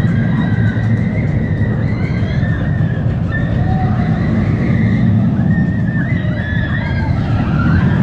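Vekoma suspended looping coaster train running along its steel track, a steady low rumble, with wind buffeting the microphone.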